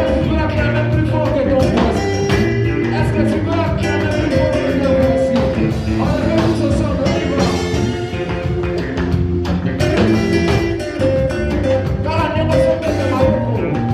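Live praise and worship band playing an upbeat song with a steady drum beat and sustained instrumental notes.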